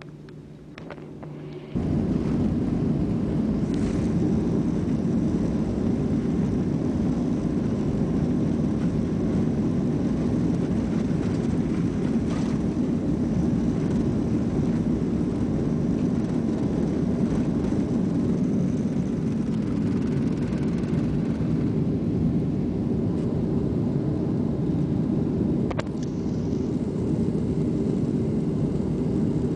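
Jet airliner engines at takeoff power, heard from inside the cabin: a loud, steady, deep rumble through the takeoff roll and climb-out. It starts abruptly about two seconds in, after a quieter opening.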